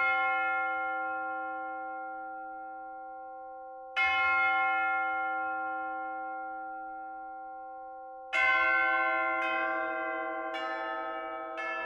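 Church bells tolling: two slow strokes about four seconds apart, each ringing out long. From about eight seconds in, quicker strokes come about once a second on bells of different pitches.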